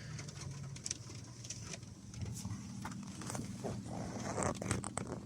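Rain falling, with scattered raindrops tapping close by at an irregular pace, over a steady low hum.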